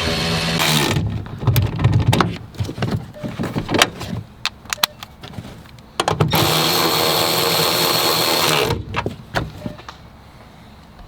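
A small power tool, like a cordless drill or driver, running in two steady bursts: one ends under a second in, the other lasts about two and a half seconds midway. Clicks and knocks of handling parts and hardware fall between.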